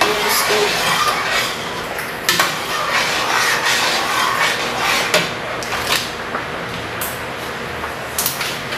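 A spoon stirring and scraping a thick cooked sugar-and-cornstarch mixture in a stainless steel pot, with a few sharp knocks of the spoon against the pot.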